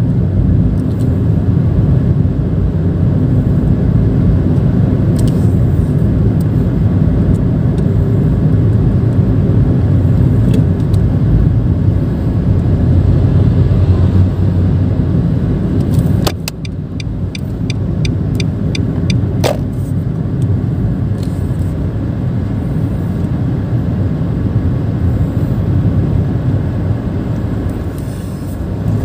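Steady low rumble of a Nissan March's 1.2-litre three-cylinder engine and road noise heard from inside the cabin while creeping in heavy traffic. A few sharp clicks cut in; after one about halfway through, the rumble drops a little in level.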